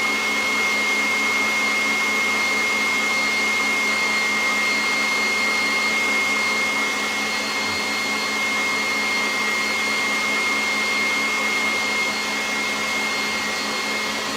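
KitchenAid tilt-head stand mixer running steadily, its motor giving a constant high whine as the beater whips boiled frosting in the stainless steel bowl.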